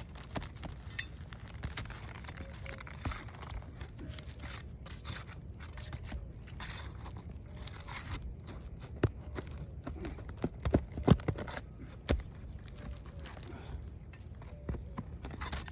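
A pry bar working under brittle asphalt roof shingles: scraping and crunching with scattered sharp clicks and knocks, the loudest cluster about ten to twelve seconds in. The crunching and tearing comes from the shingles, so brittle that they crack as they are lifted.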